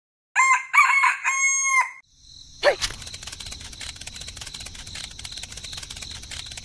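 A rooster crows, three loud notes with the last one held. About two and a half seconds in, a small motor starts with a rapid, steady ticking and a faint high whine.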